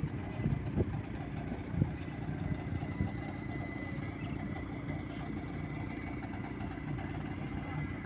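Engine of heavy construction machinery running steadily at idle, a low rumble with a faint steady high whine, and a few short knocks in the first two seconds.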